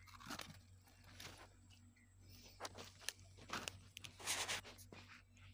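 Faint rustles and scuffs of a large fish being handled and unhooked with pliers on a dirt bank: several short brushes and scrapes a second or so apart, the loudest a little past four seconds in.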